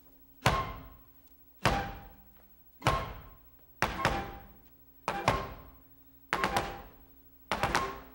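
Heel stamps of a dancer's hard shoes on a wooden stage floor, the footwork of a Spanish zarzuela dance: single stamps about a second apart, then quick pairs and triples near the end. Soft orchestral music rings under the stamps.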